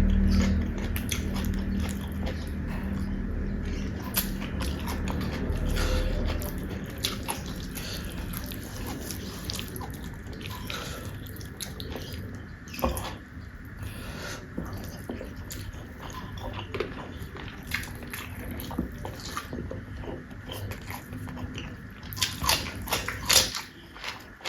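Close-miked eating: chewing and mouth smacks with many sharp crisp bites, heaviest near the end. A steady low hum sits under the first few seconds.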